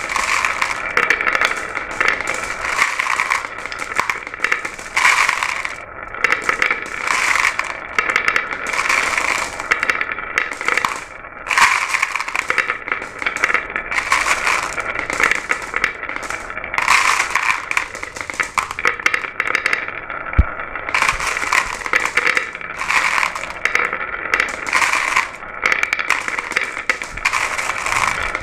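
Glass marbles rolling and clacking down a marble run track: a continuous rattling clatter of many small clicks that swells and eases in waves.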